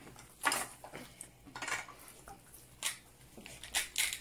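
Slime being squeezed and stretched by hand, giving four or five short, sticky squelching crackles at irregular intervals, the loudest about half a second in. The slime has just been softened with cream after being over-activated.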